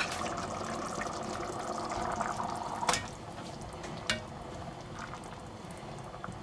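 Sauce simmering in an enamelled cast-iron cocotte, a steady bubbling hiss that eases after about three seconds as a goose breast is laid into it. A utensil knocks sharply against the pot twice, about three and four seconds in.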